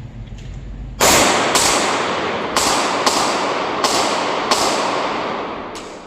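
Handgun shots fired in a string, about seven in all over roughly five seconds at an uneven pace, each leaving a long echoing ring.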